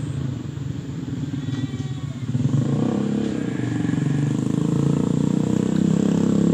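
A small engine running steadily with a rapid low pulse, getting louder about two and a half seconds in.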